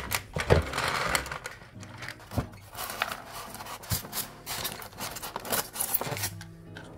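Hands handling plastic model train cars: irregular clicks, knocks and scraping and rubbing of plastic, as the caboose is worked out of its styrofoam packing tray.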